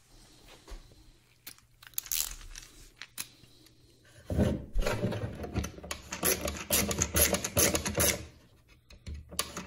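Handling noise of a plastic fog-light housing on a plastic surface as a screwdriver is brought to its adjustment screw. At first there are only a few small clicks; from about four seconds in comes a dense run of scraping and clicking that stops shortly before the end.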